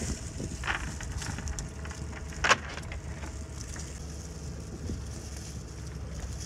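Scattered clicks and taps of a cast net's lead weights and loose shrimp on a fibreglass boat deck as the net is emptied, with one sharp knock about two and a half seconds in, over a steady low rumble.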